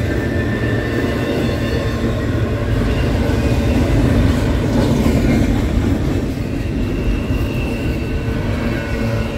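Double-stack container cars of a freight train rolling past at close range: a steady rumble and clatter of steel wheels on the rails, loudest about halfway through. Thin high wheel squeal comes in during the second half.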